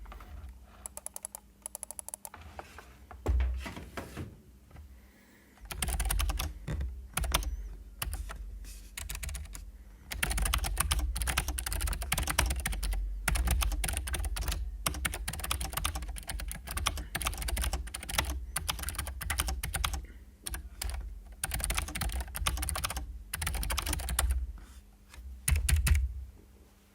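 Fast typing on a mechanical keyboard fitted with XDA-profile PBT keycaps, during a typing test. The key clacks come in long runs with a couple of short pauses.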